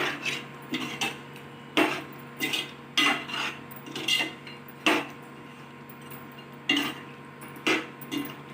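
A spoon stirring in a cooking pan, knocking and scraping against the sides in about a dozen irregular clinks with a short pause midway. A faint steady hum runs underneath.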